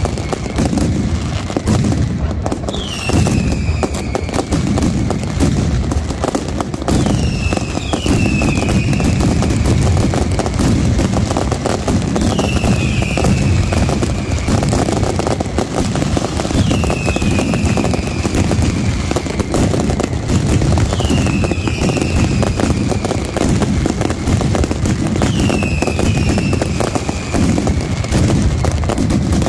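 Night mascletà fireworks: a continuous rapid barrage of firecrackers and aerial shell bursts. Falling whistles from pyrotechnic whistlers cut through every few seconds, sometimes two in quick succession.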